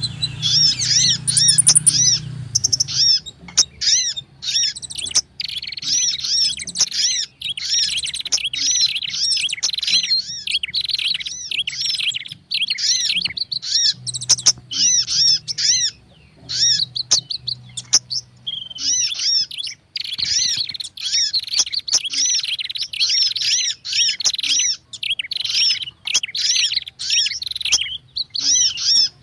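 Bird-lure recording of layered prinia (prenjak) and sunbird (sogon and kolibri) calls: a dense, agitated chatter of high chirps repeating several times a second, with a brief lull about twenty seconds in.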